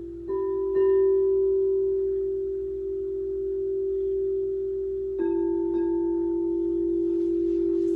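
Quartz crystal singing bowls ringing with long, steady, pure tones. They are struck twice near the start and twice again about five seconds in, and each pair of strikes sets a fresh tone ringing over the bowls' ongoing hum.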